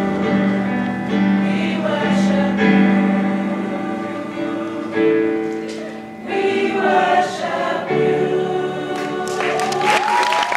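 High school gospel choir singing in harmony, holding long chords. Applause and cheers break in near the end.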